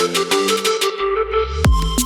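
Background electronic music: held melodic notes, then a deep rising bass sweep about a second in, leading into a beat.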